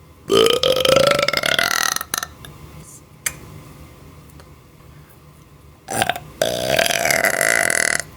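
Two long, loud deliberate belches of about two seconds each, the first rising slightly in pitch and the second starting about six seconds in.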